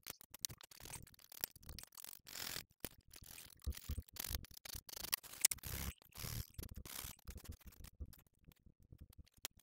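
Scalpel blade scraping and scratching at a thin label strip on a bench, in short irregular strokes with small clicks and taps, thinning out near the end.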